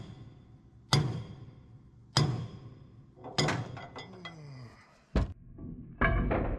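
Sledgehammer blows on a steel plug threaded into the 2.5-inch main lift cylinder pivot pin of a JLG boom lift, driving the stuck pin out. There are about five heavy metal strikes, roughly a second apart, each ringing briefly, with a longer gap before the fourth.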